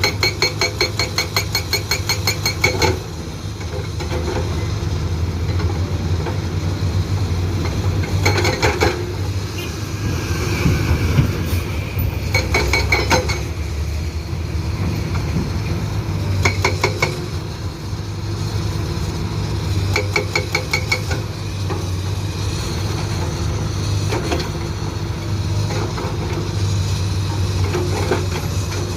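Soosan SB81 hydraulic breaker on a Komatsu PC200-8 excavator hammering rock in bursts of rapid blows: a long run of about three seconds at the start, then several shorter bursts of a second or so spread through, the last ones fainter. The excavator's diesel engine runs steadily underneath.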